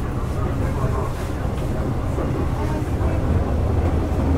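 Running noise of a Hyundai Rotem EMU (R-Train) motor car, heard on board: a steady low rumble of wheels and running gear at a constant level.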